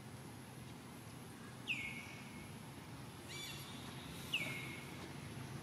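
A young long-tailed macaque giving two high-pitched cries about two and a half seconds apart, each starting sharply, sliding down and then holding a steady note for about half a second, with a quick run of short higher chirps just before the second cry.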